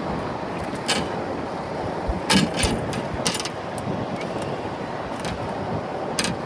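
Wind buffeting the microphone over water sounds, with a handful of short sharp knocks and clicks scattered through, a cluster of them a little past the middle.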